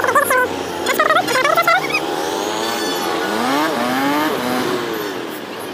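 Motorcycle engine accelerating, its pitch rising in several quick sweeps as it pulls up through the revs, over steady traffic noise.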